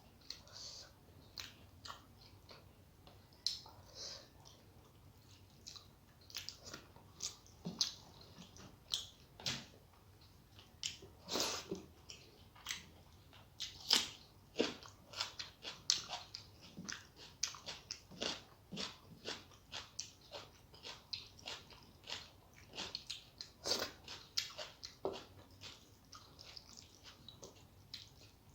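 A person chewing and eating a rice meal close to the microphone, with many irregular wet mouth clicks and smacks.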